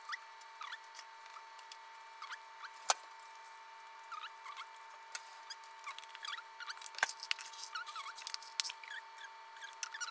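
Kimchi being packed by plastic-gloved hands into a stainless steel pot: many small squeaks and wet squelches, with a sharp knock about three seconds in and another about seven seconds in. A faint steady high whine runs underneath.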